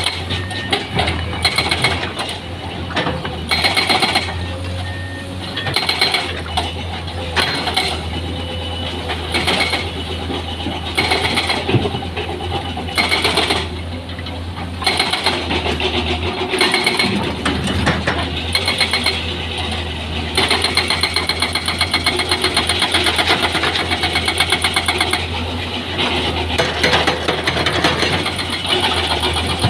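Heavy construction machinery at work: a diesel engine running steadily with repeated metallic clanks and knocks, and a fast, even rattling from about twenty seconds in.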